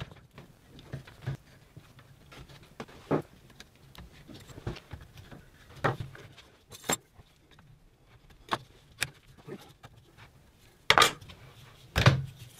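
Plastic clicks and knocks of a black plastic cable drag chain's fixed end and its cables being handled and pressed into place, with two louder knocks near the end.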